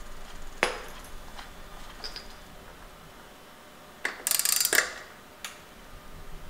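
Light metal clicks and clinks of bicycle crank parts being handled and fitted: chainring, chainring bolts and crank hardware. There is one sharp click about half a second in and a short burst of rapid metallic rattling about four seconds in.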